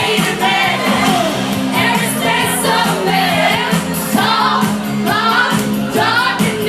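Music with singing: a voice sings a melody over held accompaniment notes.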